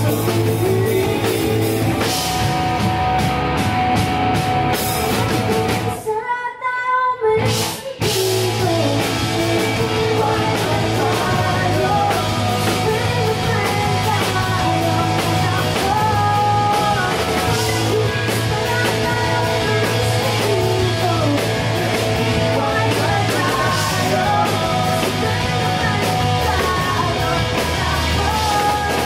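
Live rock band: female lead vocals over electric guitars, electric bass and a drum kit. About six seconds in the band stops for a moment, then comes back in.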